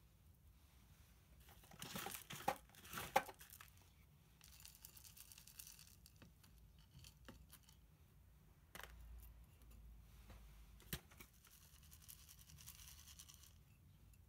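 Hands crunching and scraping gritty potting mix in a small terracotta pot, loudest about two to three seconds in. Then coarse granules are poured from a plastic scoop with a soft rattling hiss, twice, with a few light clicks in between.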